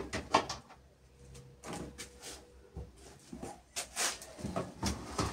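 Toys and other items being moved and taken down from the top of a wardrobe cabinet: a series of light knocks and clicks against the cabinet, with rustling and scraping between them.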